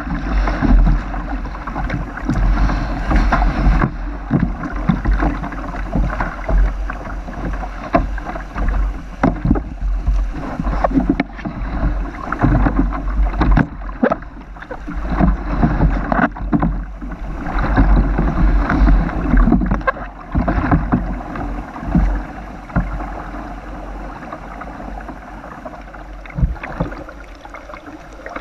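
River water rushing and splashing close to a GoPro mounted low on a plastic kayak, with irregular knocks and bumps against the hull. The water eases a little over the last few seconds.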